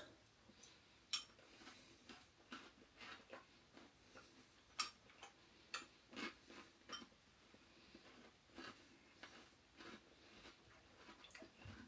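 Near silence with faint, scattered clicks and crunches from eating a bowl of crunchy chocolate cereal with milk, a few seconds apart, the sharpest about a second in and near the middle.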